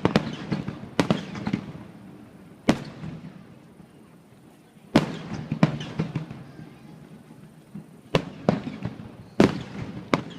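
Aerial fireworks shells bursting: a string of sharp bangs a second or two apart, each trailed by crackling that dies away.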